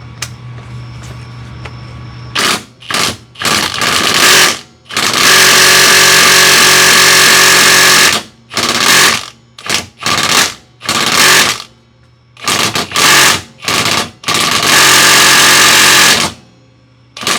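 Impact wrench hammering on the big lower-control-arm-to-knuckle nut. It comes in a string of short bursts and two longer runs of a few seconds each, and the nut does not break loose.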